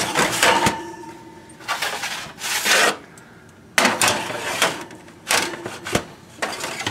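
Metal baking sheets slid onto an oven's wire rack in several bursts of scraping and rattling metal, with a sharp knock about six seconds in.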